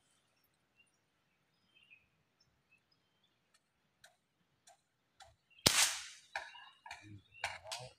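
Air rifle fired once almost six seconds in: a single sharp crack that dies away over about half a second. Small clicks and rustles follow, with faint bird chirps.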